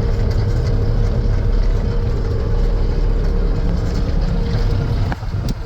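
Bobcat T770 skid steer's four-cylinder diesel engine running steadily, a low rumble with a steady whine above it, dipping briefly about five seconds in.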